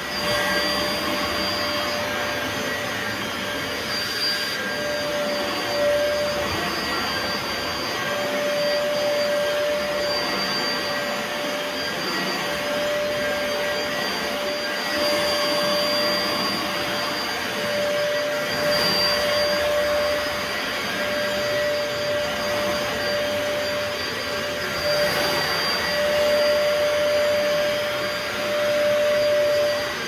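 Bissell Pet Pro upright carpet cleaner running steadily while it is worked over shag carpet. Its motor gives a constant whine, and the loudness rises and falls slightly.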